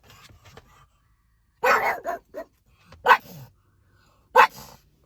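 A pug barking: three loud barks about a second and a half apart, the first followed closely by a couple of shorter, softer ones.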